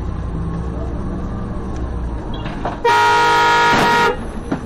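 Vehicle horn sounding one long blast of a little over a second, about three seconds in, over steady engine and road rumble. It is a warning to a car cutting in close in front.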